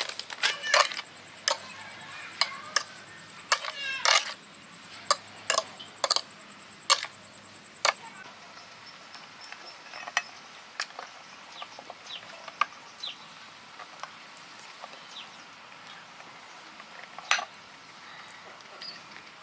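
Irregular sharp knocks and scrapes, thick in the first eight seconds and sparse after, over a steady high insect buzz.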